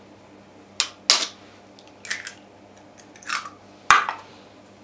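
An egg being tapped against the rim of a clear food-processor bowl and its shell cracked open: a handful of short, sharp taps and cracks, the sharpest about four seconds in.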